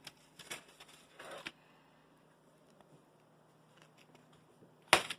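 A few light clicks and a short rustle of handling, over a faint steady low hum, then one loud sharp knock about five seconds in.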